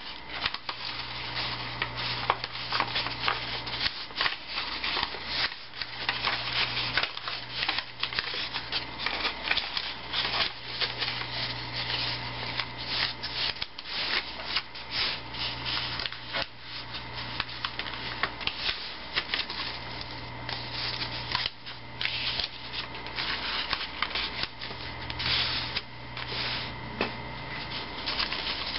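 Paper airplane being folded by hand: irregular rustling and rubbing of paper as the folds are pressed and creased flat.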